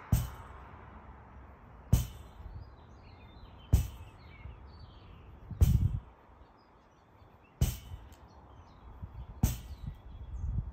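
Lacrosse ball smacking against a framed rebounder net, six sharp hits about two seconds apart as it is thrown and caught in a steady wall-ball rhythm.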